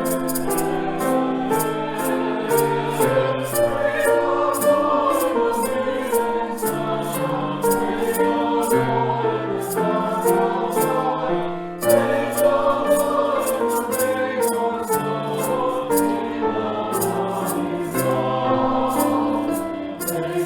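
Church choir singing an anthem in several parts, with a short break between phrases about twelve seconds in.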